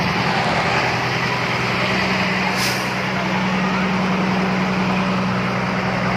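A large fire tanker truck's engine running steadily at close range, a low even hum. A brief hiss cuts through about two and a half seconds in.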